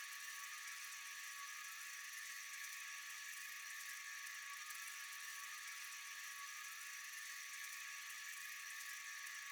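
Faint, steady high-pitched night-insect chorus: an unbroken hiss with a thin steady whine, no pauses or changes.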